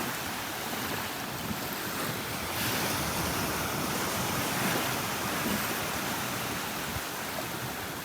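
Gulf of Mexico surf washing onto the beach, a steady wash that swells and eases, with wind rumbling on the microphone.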